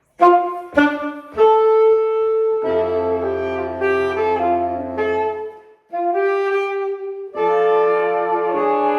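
A saxophone ensemble playing jazz chords: three short punched chords to start, then long held chords over a low bass line, with a brief break partway through.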